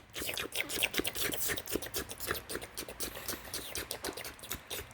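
Quick, irregular wet mouth clicks and smacks, several a second: a licking sound effect made by mouth for a cat licking.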